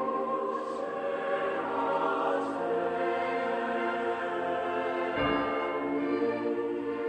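Church bells tolling slowly in mourning. The long ringing of one stroke fills the first seconds, and a new stroke sounds about five seconds in.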